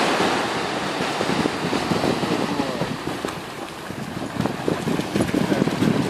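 Wind buffeting the microphone over small waves breaking on the shore, easing off briefly about midway.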